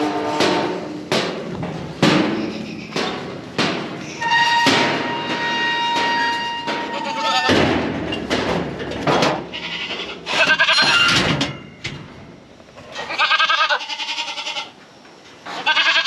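Young Kiko goats bleating several times in loud, wavering calls, with sharp knocks and clanks from the metal pen panels and gates in the first few seconds. A steady held tone lasts about three seconds in the middle.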